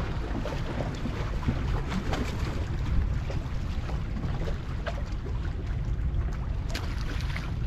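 Wind buffeting the microphone as a steady low rumble over the wash of sea water, with scattered faint ticks.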